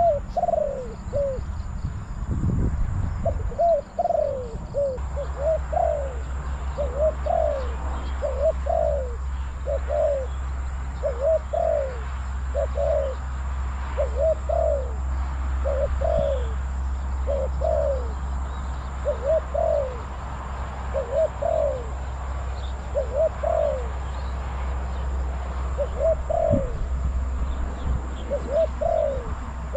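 Spotted doves cooing: short falling coo notes repeating about once a second, in a decoy dove's calling exchange with a wild dove. A steady low wind rumble sets in about five seconds in.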